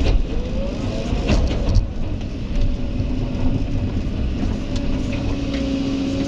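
Kobelco excavator's diesel engine running steadily with a hydraulic whine that rises in pitch over the first second, then holds. A few sharp knocks come between one and two seconds in.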